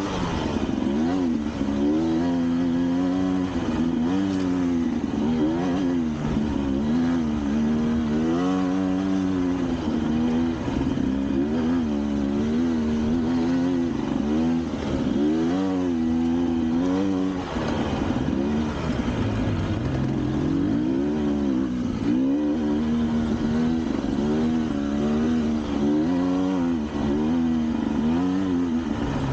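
Vehicle engine labouring up a forest track, its pitch rising and falling every second or two as the throttle is opened and eased.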